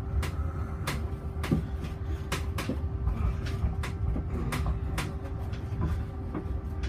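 Cabin of a Heathrow ULTra pod, a small battery-electric driverless vehicle, running: a steady low rumble under a constant hum, with sharp clicks and knocks about every half second.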